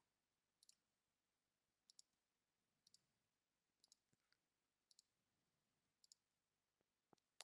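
Faint computer mouse clicks, about one a second, each a quick double tick of button press and release, over near silence.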